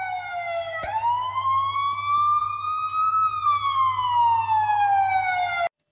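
Police siren wailing. Its pitch dips briefly, then slides up for about two seconds and back down, over a low steady hum. It cuts off suddenly near the end.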